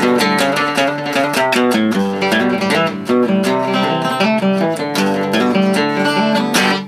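Background music: quick plucked acoustic guitar notes in a steady rhythm.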